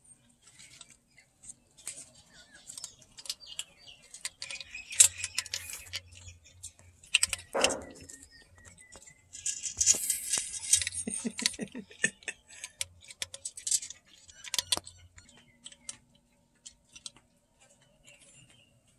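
A cat eating inside an old ceramic jar: irregular clicks, clinks and scuffs, with bursts of rustling and a short falling tone about seven and a half seconds in.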